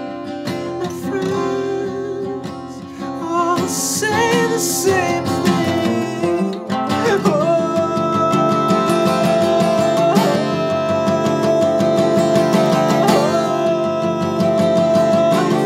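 Acoustic guitar played steadily, with a man singing over it; in the second half he holds one long sung note.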